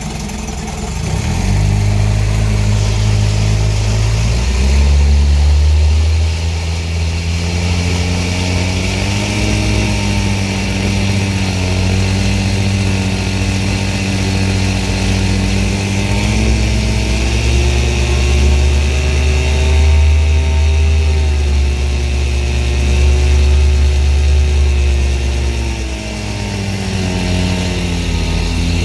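1956 Evinrude Fleetwin 7.5 hp two-cylinder two-stroke outboard engine running. It speeds up from low idle in several steps over the first half, holds at the higher speed, then slows again near the end.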